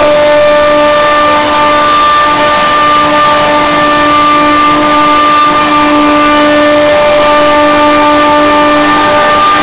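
CNC milling machine running, with a steady whine over a loud hiss.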